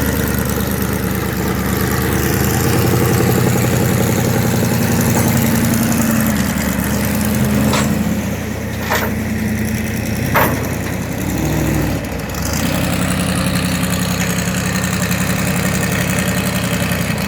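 An engine idling steadily, with three sharp clicks near the middle and a brief change in its note about two-thirds of the way through.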